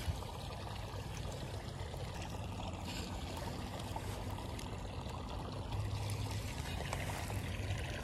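Steady trickle and pour of flowing water running into a pond, with a single short click near the start.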